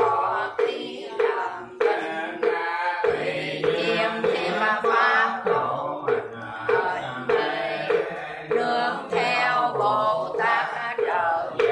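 Buddhist prayer chanting, the voices kept to a steady pitched knocking beat of about two and a half strokes a second.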